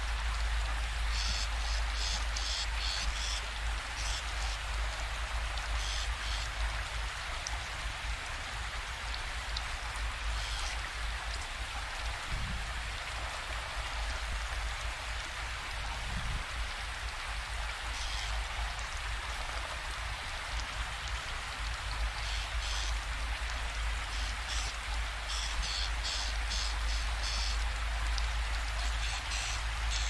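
Steady rain-like hiss over a deep rumble, with short bouts of rapid high chirps that come in clusters near the start and again in the last third.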